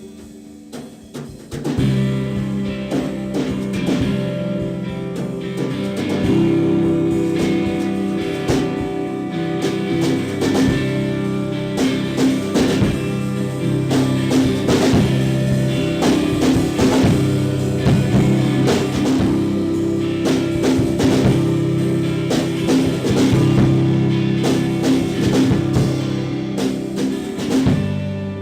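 Live band playing an instrumental passage on amplified guitars and a drum kit; after a few drum hits the full band comes in about two seconds in.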